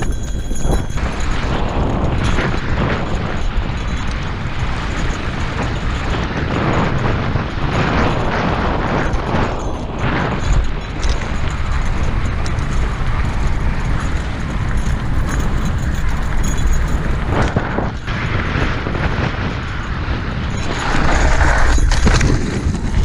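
Wind rushing over the mic, with a mountain bike's tyres rattling and crunching over loose gravel on a fast descent. Near the end comes the loudest surge, as the rider crashes and goes down sliding in the gravel.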